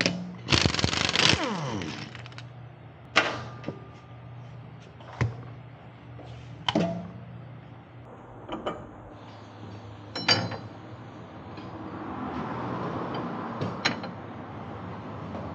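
Tools and metal parts being handled: a short clatter about half a second in, then about five separate sharp clanks and knocks spread out, over a faint steady hum.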